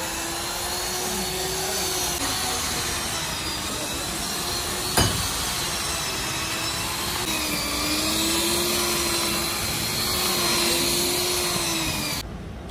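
Large two-handled electric drill running under load as its cutter works into a valve seat of an engine cylinder head, the motor whine wavering slightly in pitch. A sharp click sounds about five seconds in.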